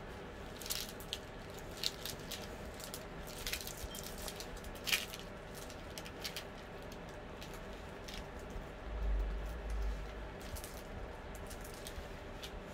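Clear plastic cover film on a poured-glue diamond painting canvas crackling and rustling in scattered small crackles as it is peeled back from the corners and smoothed down. A steady faint hum runs underneath, and a dull low thump comes about nine seconds in.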